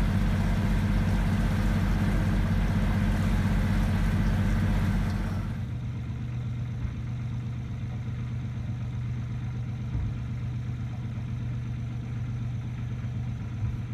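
Boat engine running with a rapid, even low pulse; about five and a half seconds in it gives way to a quieter, steady low hum.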